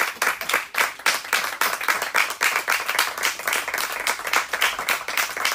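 A small audience applauding, many hands clapping at an uneven, fast rate with individual claps standing out.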